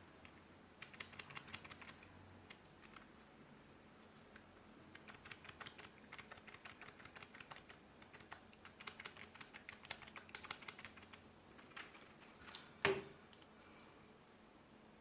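Typing on a 2.4 GHz wireless keyboard: runs of quick key clicks in two stretches, then one louder knock near the end.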